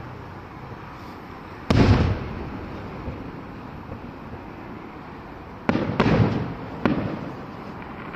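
Aerial firework shells bursting: one bang a couple of seconds in, then three more in quick succession near the end, each trailing off in a rumble.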